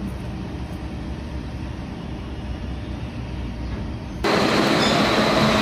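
Low, steady background rumble. About four seconds in, a much louder steady hiss with a thin high whine cuts in suddenly: a TIG welding arc burning.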